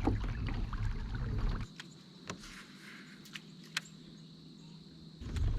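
Kayak on open water: a loud low rumble drops away about a second and a half in. It leaves a quieter stretch with a few light clicks and taps, and returns near the end.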